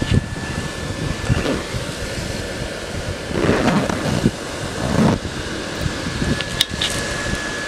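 Electric inflation blower running steadily with a thin, constant whine, keeping the inflatable elephant filled with air. Wind buffets the microphone with a low rumble, with louder rushes of noise about three and a half and five seconds in.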